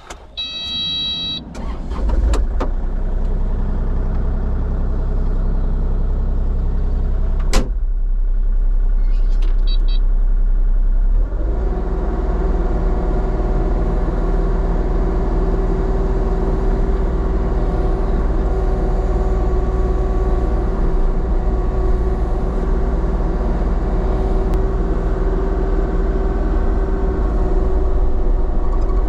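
Diesel engine of a Kubota compact machine being started: a short electronic warning beep, the engine catching and idling, then throttled up about 11 seconds in to a steady working speed.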